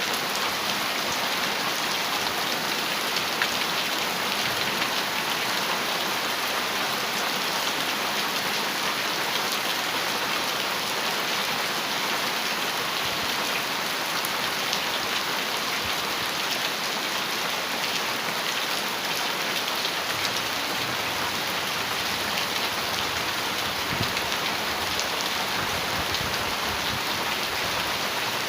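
Heavy rain falling steadily on a metal roof, a dense patter of drops with no thunder.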